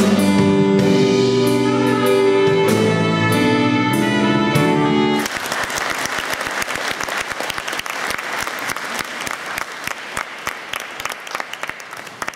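A band's music plays its last notes and stops suddenly about five seconds in. The audience then applauds, and the clapping gradually dies away.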